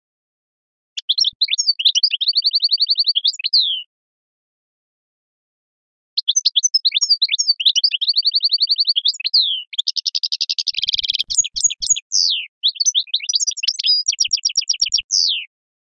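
A songbird singing two long bouts of fast twittering phrases, full of quick slurred notes and rapid even trills, with a buzzy stretch in the middle of the second bout. There is a pause of about two seconds between the bouts.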